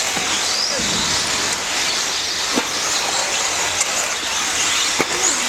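Electric 4WD off-road RC buggies racing: a steady whine and hiss of motors, drivetrains and tyres, its pitch wandering up and down, with sharp knocks about two and a half and five seconds in.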